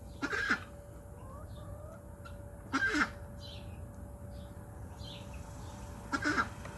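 Chickens calling: three short, loud squawks about three seconds apart, each falling in pitch at the end, over a faint steady hum.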